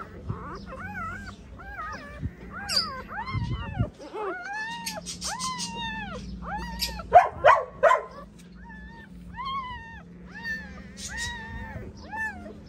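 Newborn puppies squealing and whining, a string of short, high rising-and-falling cries one after another, loudest and most crowded a little past halfway.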